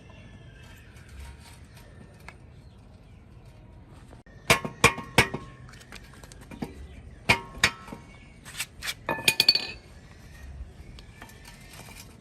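Sharp metallic clinks of small metal pieces being handled and knocked together, about a dozen strikes bunched in the middle, some with a short ring.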